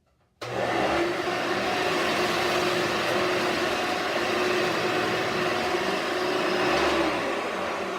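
1999 Hoover Runabout vacuum cleaner switched on about half a second in, its motor running with a steady whine and hum, easing slightly near the end.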